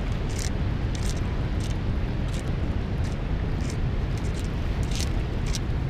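Steady rushing outdoor noise, heaviest in the low end, of wind on the microphone and river water below a dam. Faint short high ticks come through now and then.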